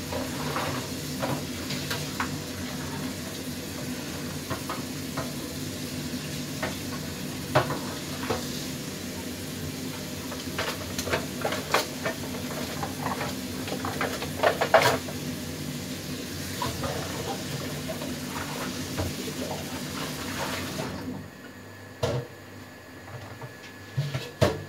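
Chili sauce sizzling in a wok while a wooden spatula stirs it, with scrapes and light knocks against the pan. About 21 seconds in, the steady sizzle and hum cut off suddenly, leaving a few separate knocks.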